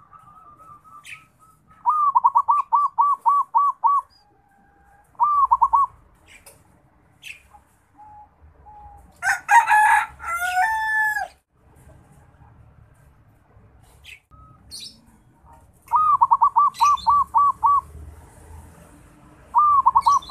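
Zebra dove (perkutut) practising its song: bursts of quick, bubbling coo notes, several times over, with the young bird still learning to call. About nine seconds in there is a louder, harsher call with several pitches, and a few faint short chirps lie in between.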